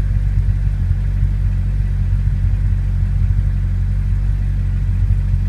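2006 Corvette Z06's 7.0-litre LS7 V8 idling steadily, heard from inside the cabin as a low, even rumble.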